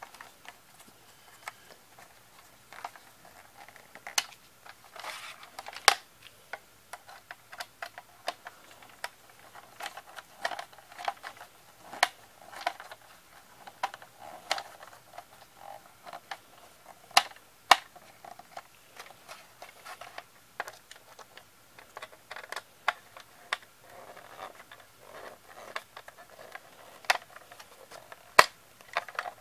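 Small screwdriver working the screws of a plastic VHS cassette shell: irregular light clicks and scrapes, with a few sharper clicks scattered through.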